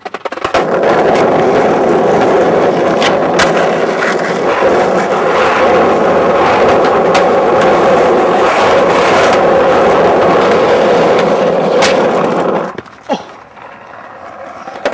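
Skateboard wheels rolling fast over rough asphalt: a loud, steady rumble with sharp clacks every few seconds. The rolling stops about 13 seconds in, and a single sharp knock follows.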